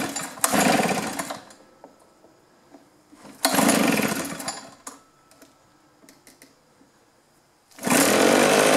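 Two-stroke backpack leaf blower engine, pull-started with the choke off: twice it fires and runs up briefly, then dies away. About eight seconds in it catches and settles into steady running. The engine is hard to start without choke, which the repairer takes for fuel starvation from a clogged carburetor, fuel filter or fuel lines.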